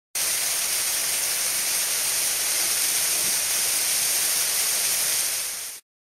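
Waterfall pouring into a pool: a steady rush of falling water that cuts off shortly before the end.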